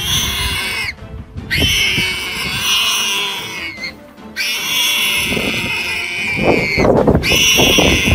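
An animal squealing in about three long, shrill cries with short breaks between them, with rough low growling sounds underneath in the second half.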